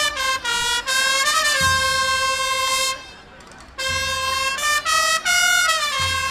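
A brass instrument playing a slow melody in long held notes that step down and up, in two phrases with a short pause between them about three seconds in. Lower held notes sound underneath in places.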